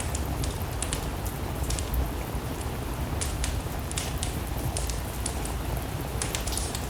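Steady rain with a low rumble underneath, mixed with the irregular crackling and sharp pops of a wood-burning fire.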